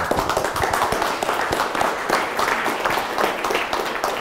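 Audience applauding: dense, many-handed clapping that starts abruptly and begins to thin out near the end.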